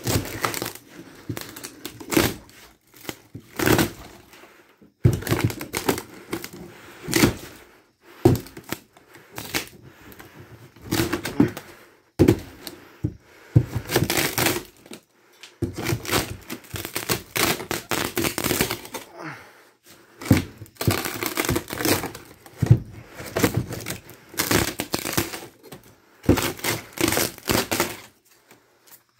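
A hammer knocking apart a camper's thin wooden wall paneling: repeated irregular blows, cracking and breaking wood, with short pauses between flurries of strikes.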